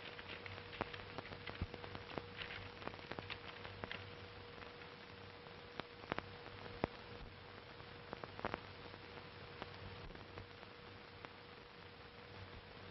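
Surface noise of an old optical film soundtrack: steady hiss with a constant low hum, dotted with irregular crackles and clicks.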